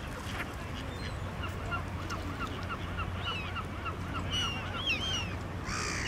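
Waterbirds calling: a regular series of short calls, about three a second, with higher, sharper calls joining in over it and a louder cluster of calls at the end.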